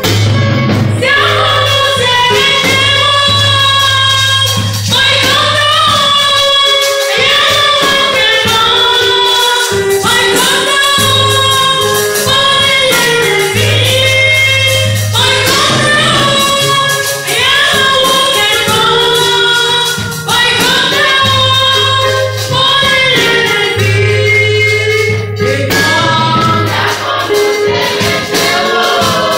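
A woman sings a gospel praise song through a microphone, leading a group of women singers, over steady percussion and a low bass line.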